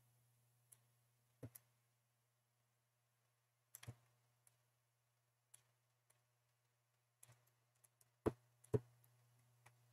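A few sharp computer mouse clicks over a faint steady hum. The two loudest clicks come close together near the end.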